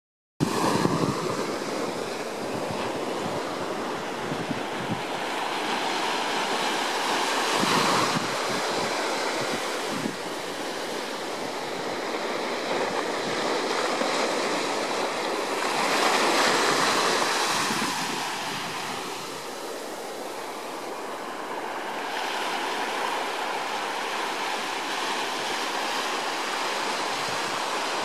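Small waves breaking and washing up a sandy beach, the surf swelling louder twice.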